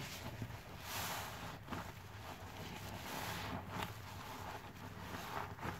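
A soaked foam sponge squeezed and worked by hand in thick soap suds: soft wet squelches and the fizzing crackle of foam, in repeated swells every second or two.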